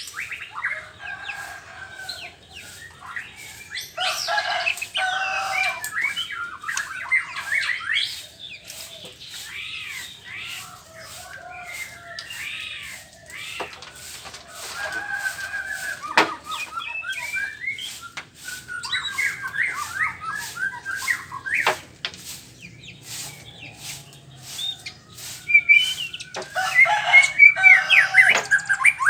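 White-rumped shama (murai batu) singing a varied, rapid song of whistled and chattering phrases with a few sharp clicks. It is loudest about four seconds in and again near the end.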